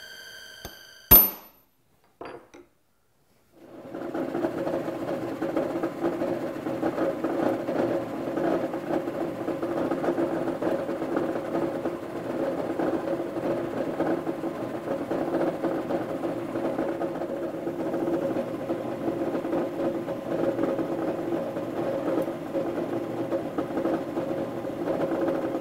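Drill running and boring holes through aluminum channel, a steady machine sound that starts about four seconds in after a sharp click and a short pause.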